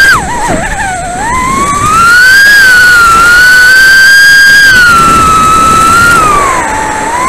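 Micro FPV quadcopter's brushless motors and Gemfan 2540 propellers whining, close to the onboard camera. The pitch drops and warbles briefly at the start, climbs steadily from about a second in, holds high, then sinks near the end before rising again as the throttle changes.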